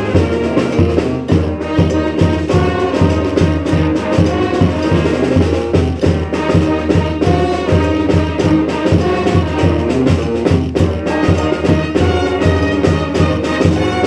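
Brass band of sousaphone, saxophones and trumpets playing a New Orleans brass band tune together. The sousaphone pumps a steady, pulsing bass line under the horns.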